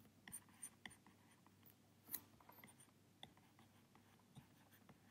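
Faint taps and light scratching of a stylus writing on a tablet, a scattering of small ticks over a few seconds.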